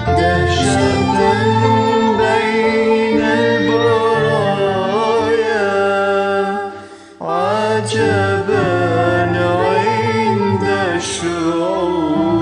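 Music: an Arabic Christian hymn, sung with instrumental accompaniment. The music dips briefly about seven seconds in, then carries on.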